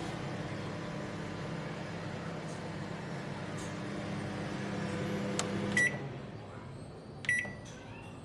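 Samsung MS23K3513AK solo microwave oven running with a steady hum, which stops about six seconds in with a short beep; a second short beep follows about a second and a half later.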